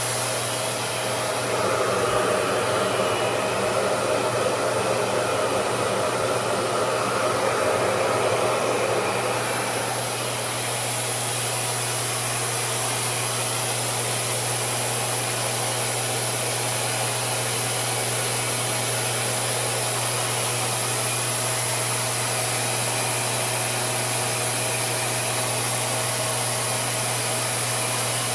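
RevAir reverse-air blow dryer running steadily, its motor humming under the rush of air being drawn through the wand. About ten seconds in the sound changes from a fuller, coarser rush to a smoother, brighter hiss.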